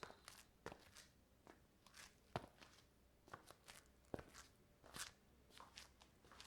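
Faint footsteps of slippers on a marble floor, short slaps and scuffs at an uneven walking pace of about two steps a second.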